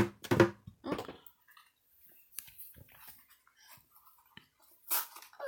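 Quiet handling of toy packaging: a sharp click at the start, then scattered small clicks and rustles. A brief voice sound comes in the first second.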